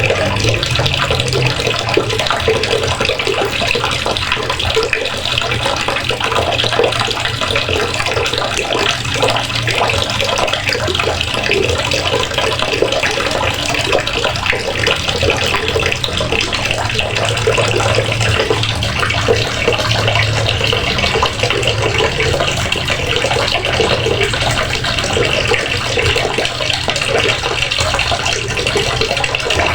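Water running steadily from a faucet, splashing into a basin below.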